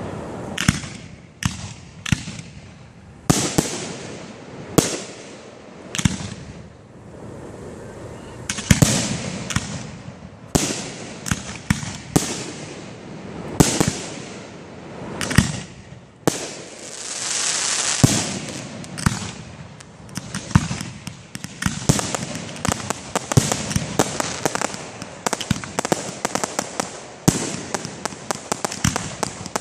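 Aerial fireworks shells bursting one after another, each a sharp bang. About two-thirds of the way through comes a long hissing rush, then the bangs give way to dense, rapid crackling and popping.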